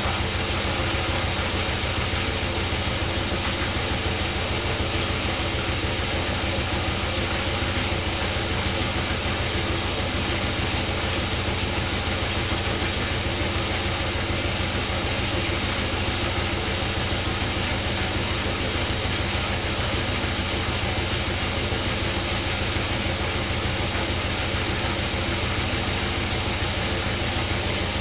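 Candy GrandO Plus washing machine running steadily on its wool programme, a constant motor hum and whir with no change in speed.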